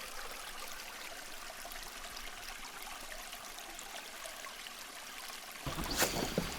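Steady rush of flowing river water. Near the end a low rumble comes in, with one sharp knock.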